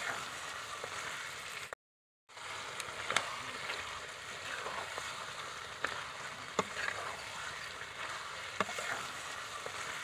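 Mutton curry sizzling in a metal kadai while a metal spatula stirs it, with a few sharp clicks and scrapes of the spatula against the pan. The sound cuts out completely for about half a second about two seconds in.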